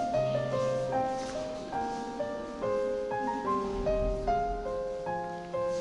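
Background music: a piano playing a gentle melody of single notes, changing about every half second.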